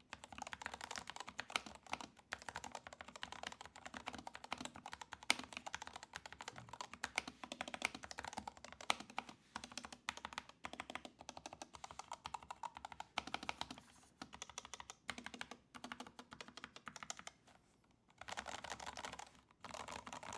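Continuous fast typing on a Syntech Chronos 68 low-profile mechanical keyboard: a dense run of key clicks that stops briefly near the end and then picks up again.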